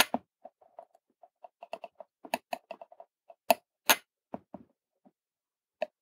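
Scattered small clicks and ticks from hand-soldering a through-hole LED's pins on a circuit board, the soldering iron and solder wire working at the joints. A few sharper clicks stand out around two and a half, three and a half and four seconds in.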